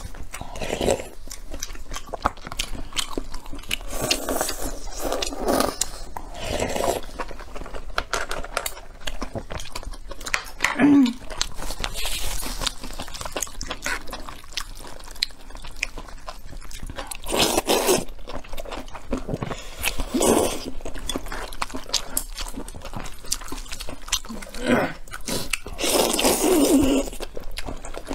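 Close-miked eating sounds: chewing with small wet clicks, broken every few seconds by short bursts of slurping noodles.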